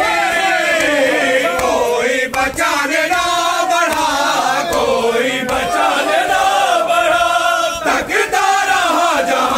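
A crowd of men loudly chanting a noha, a Shia lament recited for matam, with a few sharp slaps cutting through, around the second second and again near the end.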